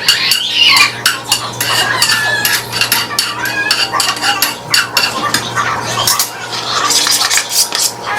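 A utensil stirring and scraping in a pan, with many quick clinks and scrapes over a steady low hum.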